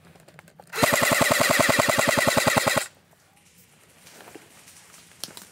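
Airsoft rifle firing a full-auto burst of about two seconds, a fast even rattle of about fourteen shots a second, starting about a second in. A few faint clicks and knocks follow near the end.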